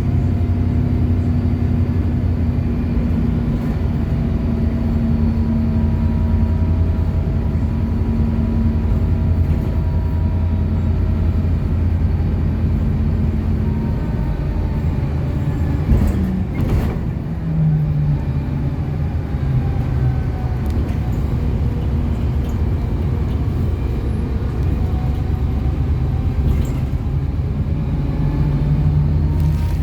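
City bus running on the move, heard from inside: a steady engine drone with road noise. About sixteen seconds in there is a sharp click, and the engine note changes after it.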